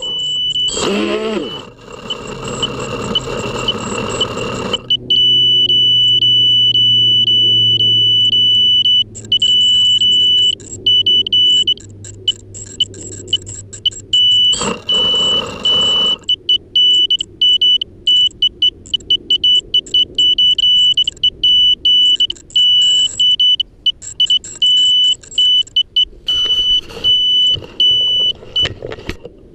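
An FPV quadcopter downed in the grass: a few seconds of motor and propeller whirring, then the quad's lost-model buzzer sounds one steady high-pitched tone that later breaks into rapid beeping. A brief rush of noise comes about halfway through.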